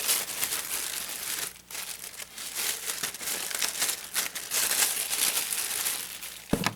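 Plastic packaging and paper crinkling and rustling as it is handled, in irregular bursts, with a short bump near the end.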